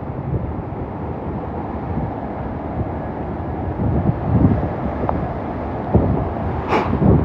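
Hurricane-force wind buffeting the phone's microphone in a low, gusting rumble, with a brief sharp knock near the end.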